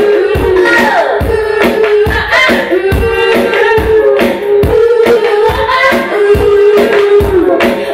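Live indie-rock band playing: a woman singing lead over electric bass and guitar, with a steady beat of low drum thumps about two a second.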